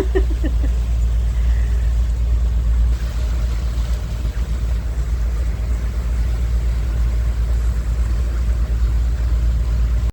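Motorboat under way at slow speed, heard aboard: a steady, deep rumble of the engine and hull.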